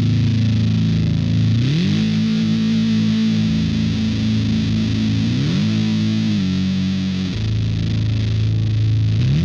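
Electric guitar played through the Gorva Design/Mask Audio Electronics LARAN MOSFET-input muff-style fuzz pedal, heavily distorted. It holds long low notes with a thick, saturated tone and slides up between them about a second and a half in, again past the middle and once more at the very end.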